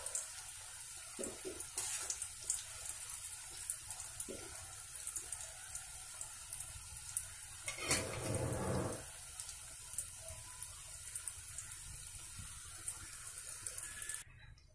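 Hot oil sizzling steadily with fine crackles as folded maida-dough pastries (madata kaja) deep-fry in a steel pan, with a louder noise lasting about a second around the middle. The sizzle cuts off abruptly near the end.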